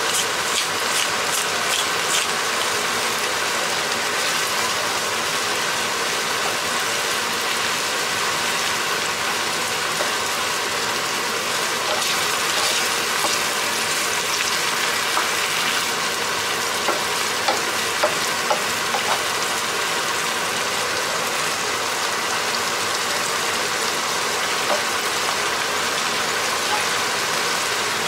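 Ground beef with tomato, green pepper and onion sizzling steadily in a frying pan while a wooden spoon stirs through it. A few light clicks come about two-thirds of the way through.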